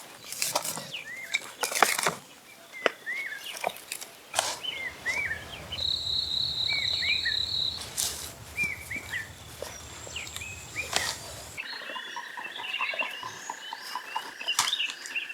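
Outdoor ambience: small birds chirping repeatedly in short calls, with a steady insect-like buzz for a couple of seconds in the middle and scattered sharp clicks and knocks. Near the end a thinner continuous tone with rapid ticking sets in.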